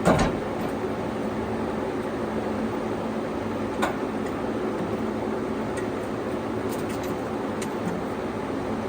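Sawmill running steadily, with a sharp knock just after the start and a lighter one about four seconds in.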